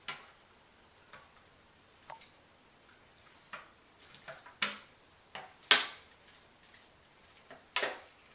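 Crushed aluminium soda can crinkling and popping in the hands as its dents are worked out, a scatter of separate sharp clicks, the loudest a little over halfway through.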